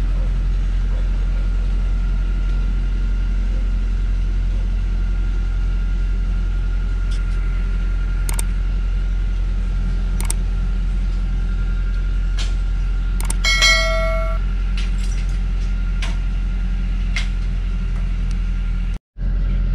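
Engine of a log-laden truck running steadily under load as it climbs a steep dirt slope, a low even drone. A few sharp knocks, and about two-thirds through a brief metallic ring; the sound cuts out for a moment near the end.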